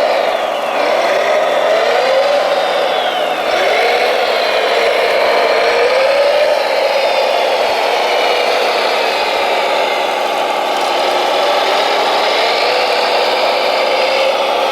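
Remote-control model construction machine running continuously, its motor or engine-sound unit holding a steady hum whose pitch rises briefly several times as it works.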